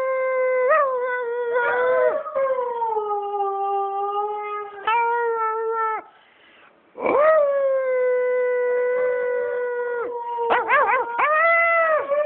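A 12-year-old Siberian husky howling: long held howls that sag slightly in pitch, with a pause of about a second just past the middle, then a few quick wavering notes near the end before another held howl.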